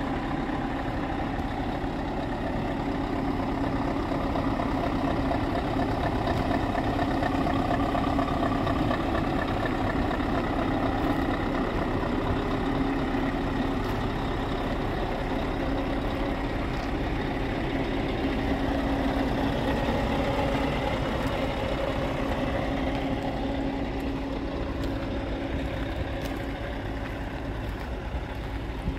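Scania R580 truck's 16-litre V8 diesel engine idling steadily.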